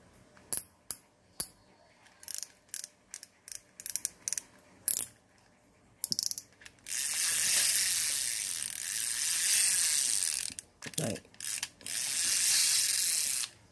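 Daiwa size-1000 spinning fishing reel worked by hand: a string of sharp mechanical clicks, then the handle cranked fast in two long spells, a steady high whirr of gears and rotor. The reel runs smoothly.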